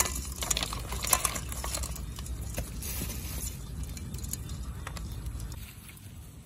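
Live crabs and snails shifting in a metal pot as a hand rummages through them: shells clicking and rattling against each other and the pot's sides, the sharpest clicks near the start and about a second in, over a low rumble.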